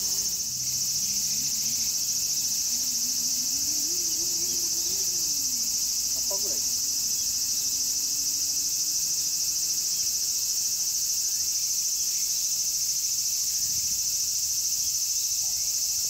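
Steady, high-pitched insect chorus that carries on without a break.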